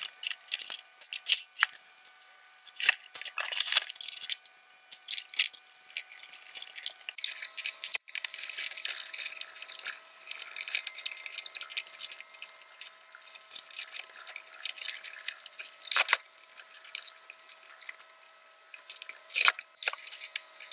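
Rapid clicks and rattles of plastic covers and small parts being handled and snapped into place on an Elna Experience 550 sewing machine as it is reassembled, the audio sped up so the clicks come quick and thin. Faint steady tones sit underneath and shift pitch about a third of the way in.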